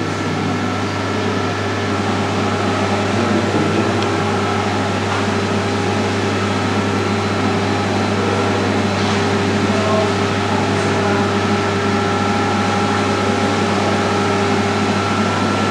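Steady low electrical hum from aquarium equipment, with fainter higher tones over a hiss.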